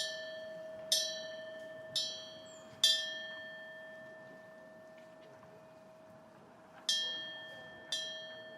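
Metal wind bell (Korean pungyeong) struck by its clapper six times: four strikes about a second apart, then after a pause of about four seconds two more. One steady low tone keeps ringing under the brighter tones of each strike, which fade after it.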